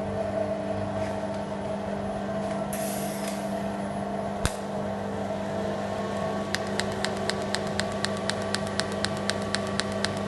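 Steady electrical hum of a TIG welding robot cell, with a brief hiss about three seconds in and a single sharp click a little later. From about six and a half seconds a regular ticking starts, about three to four ticks a second.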